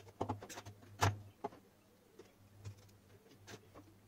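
Scattered light clicks and knocks from hands handling thin wires, a soldering iron and the plastic torch housing on a table, the loudest about a second in.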